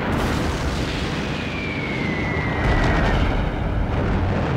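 Air-raid battle sound effects: a dense rumble of explosions with a few sharp blasts. A thin falling whistle starts about a second in and lasts about two seconds.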